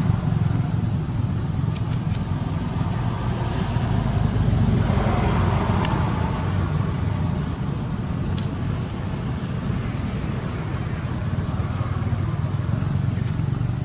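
Steady low outdoor rumble with a few faint clicks.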